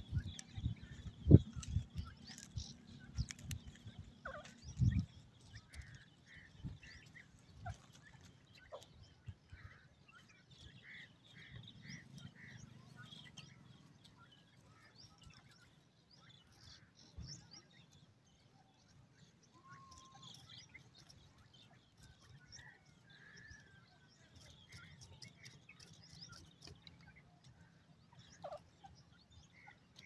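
Grey francolins calling softly as they forage: faint runs of short chirps, several notes a second, repeated now and then. A few low thumps sound in the first five seconds.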